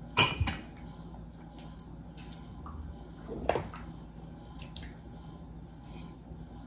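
A plastic measuring cup used as a scoop clacking against a glass bowl and a stainless steel stockpot, with soup splashing as it is scooped and poured. There are two sharp knocks just after the start, another about three and a half seconds in, and a few fainter clicks.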